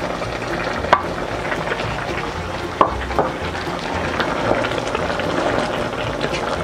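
Beef stew bubbling in a wok while fried saba banana pieces are slid in and a wooden spatula stirs, scraping and knocking against the pan, with two sharp knocks about one and three seconds in.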